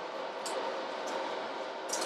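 Steady whir of a powered-up AHP AlphaTIG 200X inverter welder, its cooling fan running, with a few light clicks of multimeter probes being set on the circuit board.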